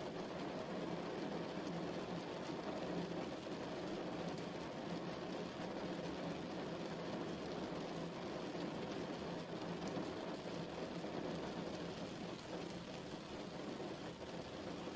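Steady, even rainfall that never lets up, deep and full in tone rather than thin and hissy.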